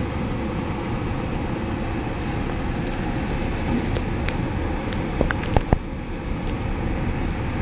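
Car running, heard from inside the cabin as a steady low rumble. A few sharp clicks sound a little past the middle, two of them louder, close together.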